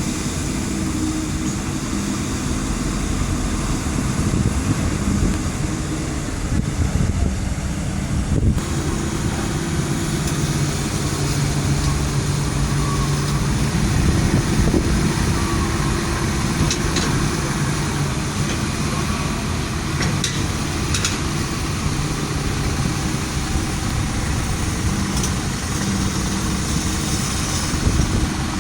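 Heavy truck's diesel engine running steadily at idle, with an abrupt change in the sound about eight seconds in.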